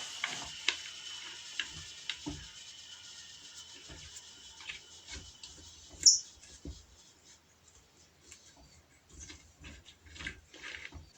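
Scattered light clicks and knocks of small handling, with a faint high hiss that fades away over the first few seconds. One sharp high click comes about six seconds in.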